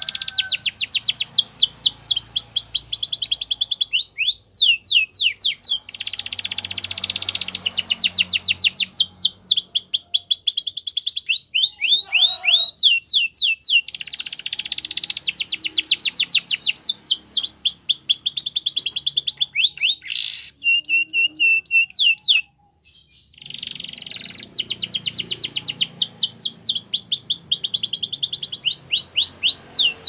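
Domestic canary singing: long rolling trills, each a rapid run of falling whistled notes, broken by short pauses, with a brief silence about three quarters of the way through.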